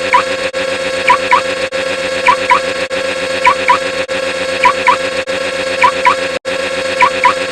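Layered, looped sound effects: a steady buzzing hum under a pair of quick rising blips that repeats a little under once a second, each repeat broken by a brief cut-out.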